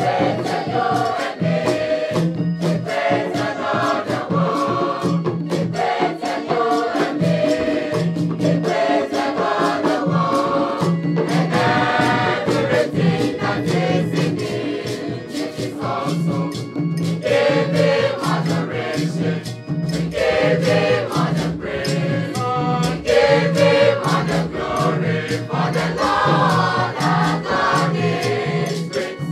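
Mixed school choir singing a gospel song in parts, backed by a steady beat on hand drums and shakers.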